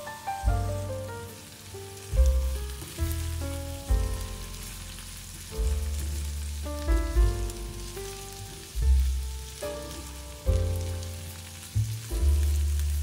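Background music, a melody of struck notes with falling runs over deep bass notes, is the loudest sound. Under it, sliced potatoes and onions sizzle in a frying pan.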